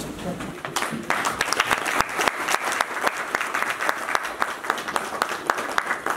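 A group of people applauding, the clapping starting about a second in and then holding at an even level as a dense patter of hand claps.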